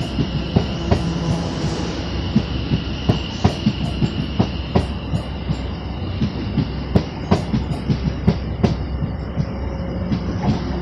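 Greater Anglia Class 720 Aventra electric multiple unit moving through the platform, its wheels clicking over rail joints in a steady clickety-clack with a low rumble. A high electric whine runs under it and fades away about halfway through.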